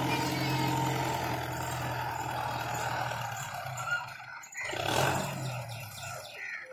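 Belarus 510 tractor's diesel engine running steadily while working the field, its note fading about three seconds in. A brief rush of noise follows about five seconds in.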